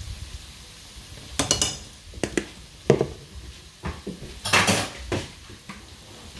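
A metal spoon clinking and knocking against a cooking pot and spice containers while turmeric is spooned in: a run of about seven sharp clinks with short ringing, the loudest a cluster about halfway through.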